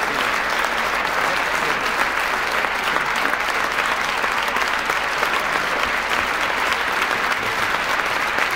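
Standing ovation from a large audience: dense, continuous clapping at a steady level.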